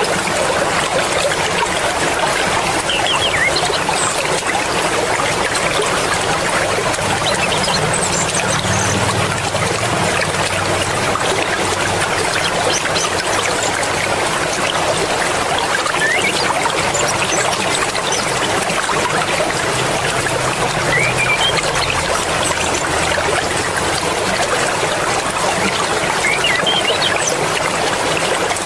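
Swift mountain river water rushing steadily, an even, unbroken flow.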